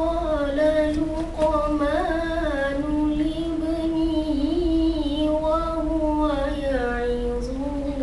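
A boy reciting the Quran in the melodic tajwid style, holding long, slowly wavering notes with ornamented turns, unaccompanied. The pitch sinks a little about seven seconds in and then starts to rise again.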